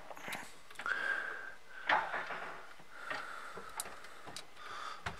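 Faint short hisses and a few light ticks while an SMD inductor is hand-soldered onto a circuit board with a soldering iron.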